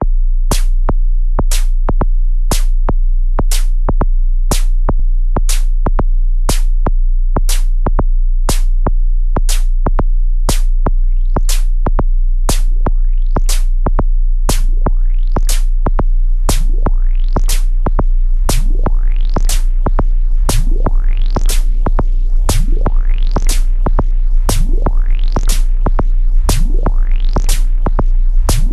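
Electronic track from a Eurorack modular synthesizer with Korg Volca Drum kick and snare: sharp drum hits about twice a second over a steady deep low drone. From about ten seconds in, rising synth sweeps come in about once a second and grow louder.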